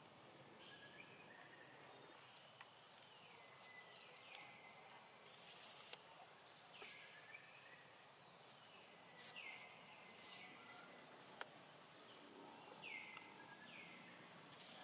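Quiet outdoor wetland ambience: a steady high hiss, with short high chirps that fall in pitch every second or two. A single sharp click about eleven seconds in is the loudest moment.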